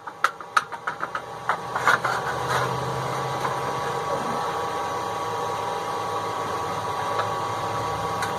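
A few sharp clanks of steel being set and clamped in a bench vise, then a steady machine hum with a faint whine for the rest.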